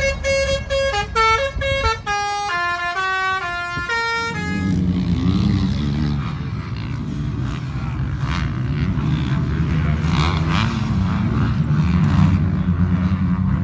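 A horn plays a quick tune of short, stepped notes for about the first four and a half seconds. Then motocross motorcycle engines take over, revving up and down.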